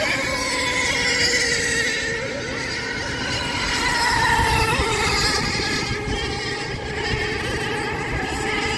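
Outboard engines of several 20 Hydro class racing hydroplanes running hard, a high-pitched whine with several tones whose pitch slides up and down as the boats lap and pass.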